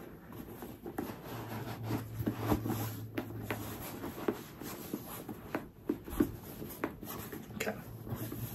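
Handling noise of a bag organizer being fitted into a Louis Vuitton Tivoli PM handbag: soft rustling and rubbing with scattered light scuffs and knocks.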